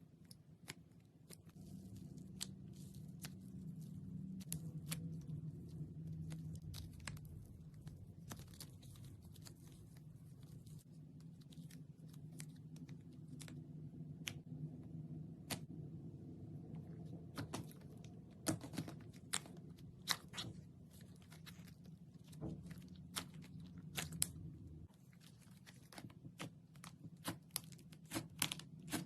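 Slime being pressed, squished and pulled apart, giving scattered sharp clicks and crackles that come more often in the last third. A low steady hum runs under it and stops near the end.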